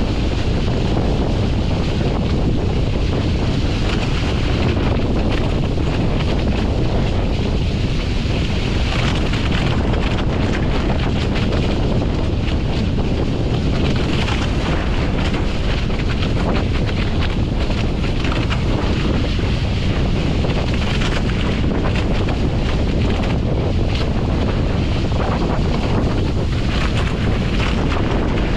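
Wind buffeting a GoPro's microphone on a Nacra F15 catamaran under sail, over water rushing and splashing past the hulls through the chop.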